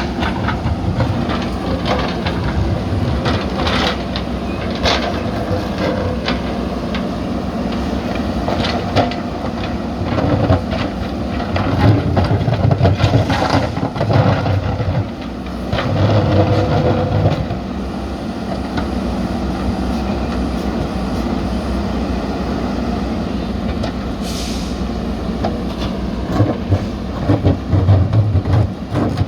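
JCB backhoe loader's diesel engine running under load, with repeated clanks and knocks as it works heavy concrete slabs. The engine swells louder twice, around the middle and near the end.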